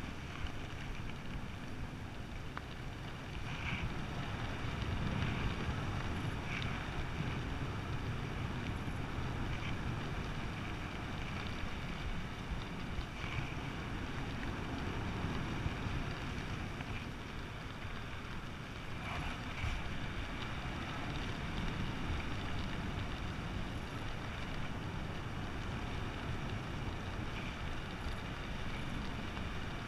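Steady wind noise buffeting a helmet camera's microphone while flying under an open ram-air parachute canopy, swelling and easing gently, with a few faint ticks now and then.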